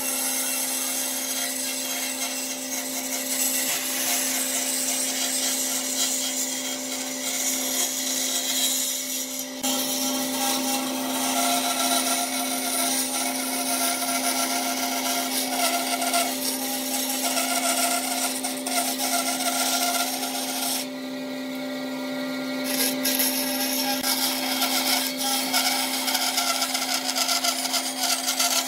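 Band saw running with a steady hum, its blade cutting curves through pine boards fed by hand. The cutting noise drops for a moment about three quarters of the way through, leaving the hum, then resumes.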